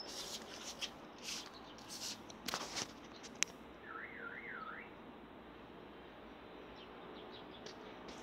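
Handling noise from a handheld phone: several short rustles and clicks, the sharpest a little after three seconds in. About four seconds in comes a brief warbling whistle that rises and falls three times.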